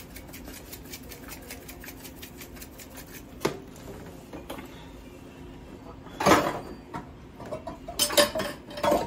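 Kitchen containers clinking and clattering on the counter as seasonings are put down and picked up. Quick light ticks in the first few seconds, a sharp knock about three and a half seconds in, then a louder clatter past six seconds and another near the end.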